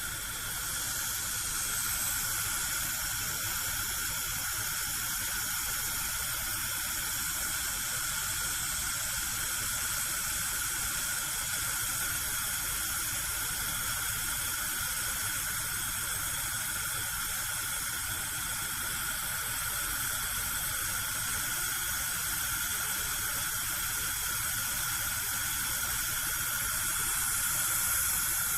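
Gas cooker burner lit and burning steadily with a constant hiss of gas and flame.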